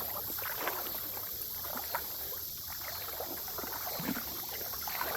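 Shallow creek water sloshing and trickling, with irregular small splashes.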